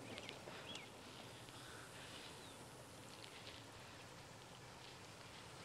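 Near silence: faint outdoor field ambience with a few faint, short, high chirps.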